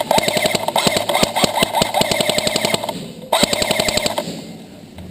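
Airsoft electric gun firing on full auto: rapid even clicks over the whine of the gearbox motor, a long burst of about three seconds, a short pause, then a shorter burst of about a second.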